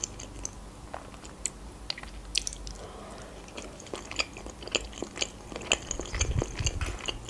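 Close-miked chewing of crisp cucumber pieces: irregular crunches and wet mouth clicks.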